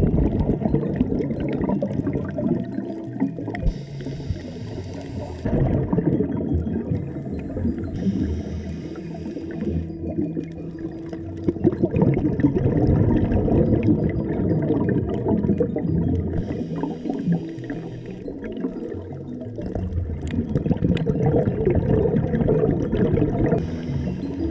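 Muffled underwater sound picked up by a camera held under water: a dense low rumble with crackling, broken four times by a short hiss a few seconds apart.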